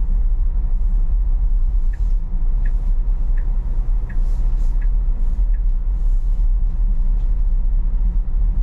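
Steady low road and tyre rumble inside a moving car's cabin on snow-covered roads. From about two to five and a half seconds in, a light ticking comes about every 0.7 seconds, the turn signal on through a roundabout.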